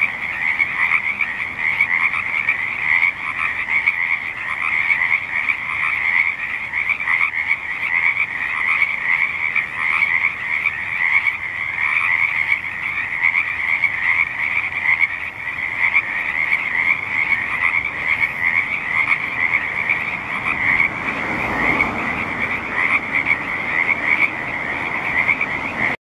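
A dense chorus of many frogs croaking at once, the calls overlapping into a continuous pulsing din. A low rumble swells and fades about 21 to 23 seconds in.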